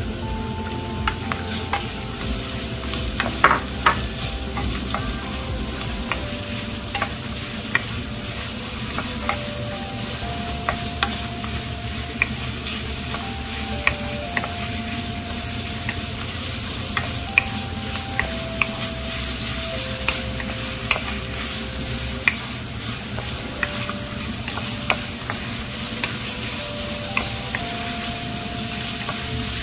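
Food sizzling and frying in a pan while it is stirred, with a utensil clicking against the pan every second or so.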